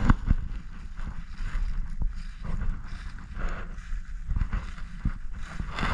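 Low wind rumble on the microphone, with footsteps swishing through dry field grass.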